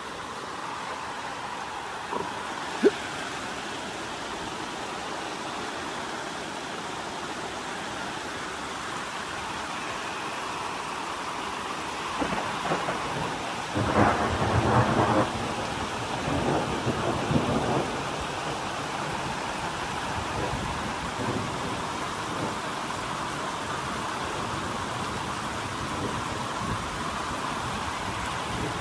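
Heavy rain falling steadily, with a roll of thunder rumbling for several seconds about midway. A single sharp click comes about three seconds in.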